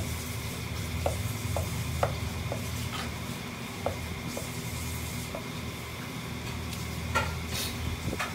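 Chef's knife slicing raw chicken breast on a wooden cutting board: light, irregular taps of the blade meeting the board, about two a second. Near the end come a few louder clacks as the knife is set down on the board.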